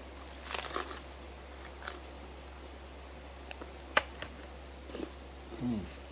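Scattered small handling sounds over a low steady hum: a crackly crinkling rustle about half a second in, a few sharp clicks (the sharpest about four seconds in), and a short low sound falling in pitch near the end.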